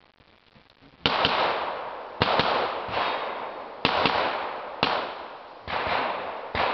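A string of pistol shots during an IPSC stage: about six sharp shots roughly a second apart starting about a second in, some closely followed by a second shot, each with a long echoing tail.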